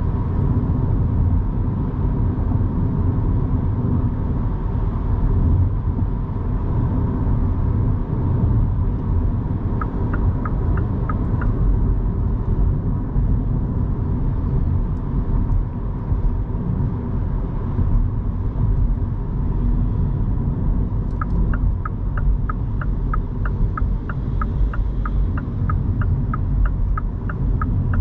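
Road and tyre rumble from a 2023 Mini Cooper SE electric car being driven. A turn-signal indicator ticks about three times a second, briefly about ten seconds in and then steadily through the last third.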